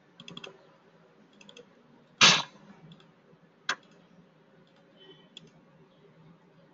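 Computer mouse clicks and light keyboard keystrokes, scattered and soft, with one louder short thump about two seconds in and a sharper click a little later.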